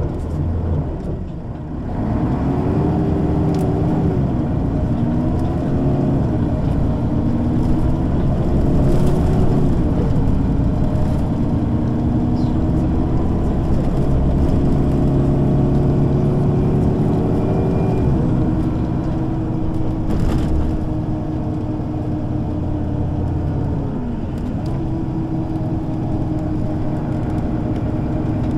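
Mercedes-Benz O 530 G Citaro G articulated bus's diesel engine pulling away and accelerating, the pitch climbing and dropping back at each of several upshifts of its ZF automatic gearbox in the first ten seconds. Then comes one long climb that drops off about eighteen seconds in, after which the engine runs steadily, with a brief dip in pitch a few seconds before the end.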